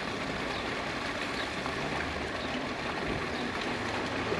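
Steady background noise of a marina: water moving in the harbour, with no distinct event standing out.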